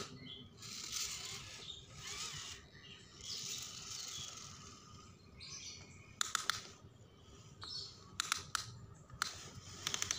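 Birds chirping, with groups of sharp clicks and knocks in the second half.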